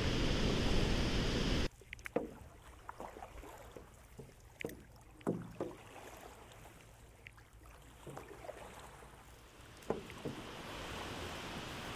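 A steady rushing noise cuts off abruptly about two seconds in, leaving the light, scattered splashes and drips of a stand-up paddleboard paddle dipping into calm river water. A soft steady rush of water comes in near the end.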